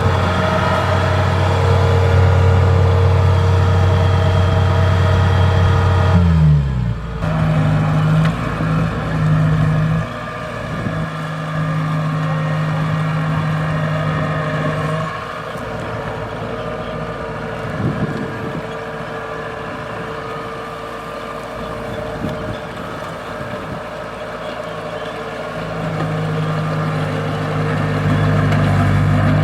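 Kubota DC-70 combine harvester's diesel engine running under load. Its note drops sharply about six seconds in, stays lower and quieter through the middle, and picks up again near the end.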